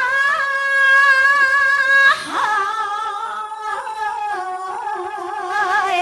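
Solo singing voice holding a high note with wide vibrato. About two seconds in it drops to a lower, wavering, ornamented note that slides lower still.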